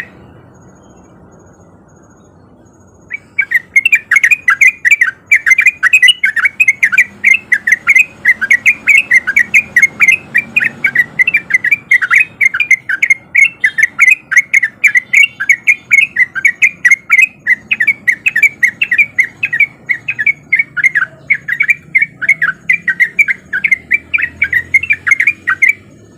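Yellow-vented bulbul (trucukan) singing its fast, continuous 'ropel' song: a long unbroken run of quick chirpy notes, several a second. The song starts about three seconds in, after a brief pause.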